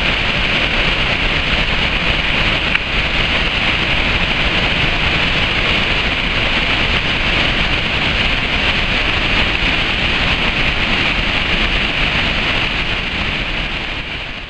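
Steady rush of water pouring over a waterfall, an even, loud hiss with a low rumble beneath it.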